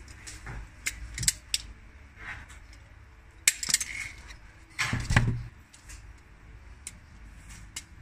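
An HS-D1 automatic wire stripper snaps and clicks as its spring-loaded jaws close and strip a wire, with several sharp clicks about a second in. The plastic-and-metal pliers then clatter in the hands, with the loudest knock and thud around five seconds in, and a few small ticks near the end.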